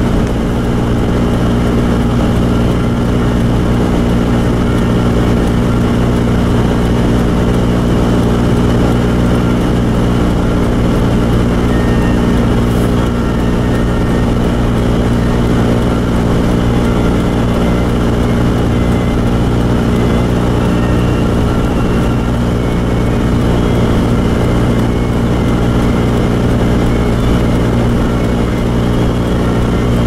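Steady cabin noise inside a 1990 Toyota 4Runner driving on snow: the heater blower running on high, with engine and tyre noise underneath. It is loud, with a steady hum that does not change in pitch.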